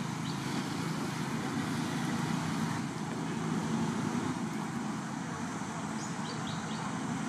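Steady low background rumble, with a few short, high bird chirps about six seconds in.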